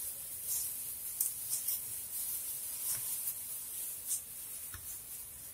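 Thin plastic food-prep gloves rustling and crinkling as hands rub and knead salt and pepper into a whole raw fish, with scattered short soft rustles.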